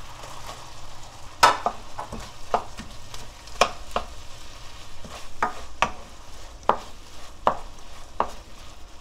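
Gochujang chilli sauce bubbling and sizzling in a nonstick frying pan as sliced onion and chilli peppers are stirred in with a wooden spatula, the spatula knocking against the pan about once or twice a second. The loudest knock comes about one and a half seconds in.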